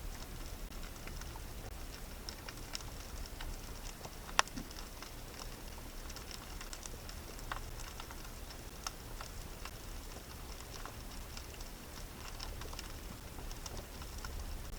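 Underwater ambience: scattered small clicks and crackles over a low steady rumble, with one sharper click about four seconds in.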